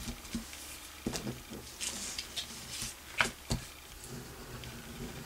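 Quiet handling of paper cutouts and a liquid glue bottle on a tabletop: light paper rustling and a few small taps and clicks, the sharpest a little after three seconds in.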